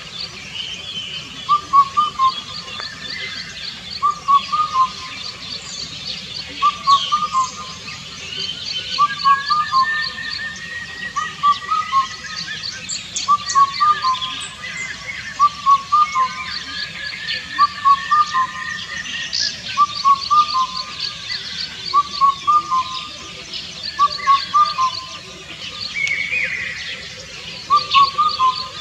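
Indian cuckoo singing its four-note whistled phrase, repeated about every two seconds, with other birds chirping and trilling higher in the background.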